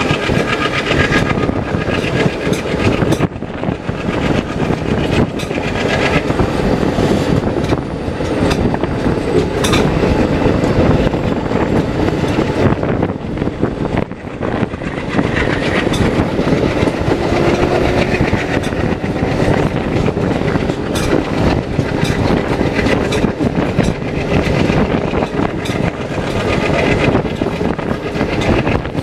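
Passenger train running past at speed: a loud, steady rail rumble with the clickety-clack of wheels over rail joints throughout.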